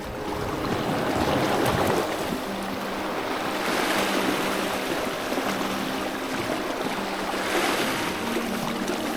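Sea waves washing over rocks, surging about three times, over soft background music.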